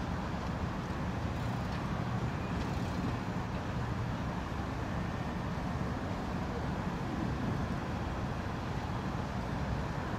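Steady city traffic rumble: a constant low hum of distant road traffic with no single vehicle standing out.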